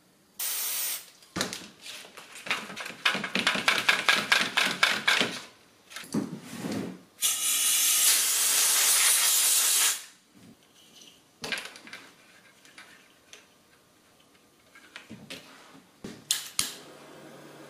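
Aerosol spray can of conformal coating: a brief spray, then the can shaken with its mixing ball rattling rapidly for about four seconds, then a steady spray of about three seconds that cuts off sharply. Scattered small clicks from handling follow.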